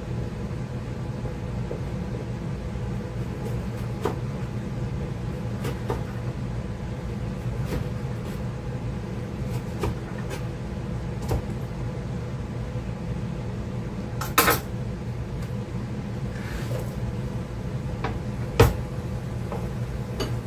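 Kitchen knife cutting eggplant on a plastic cutting board: scattered knocks of the blade on the board every second or two, with two louder knocks in the second half, over a steady low hum.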